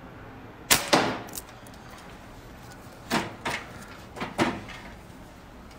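Slingshot shots: sharp cracks of the rubber-band release and the steel ball striking, two loud ones close together under a second in with a short ringing tail and a smaller one after, then another group of three to four cracks about three to four and a half seconds in.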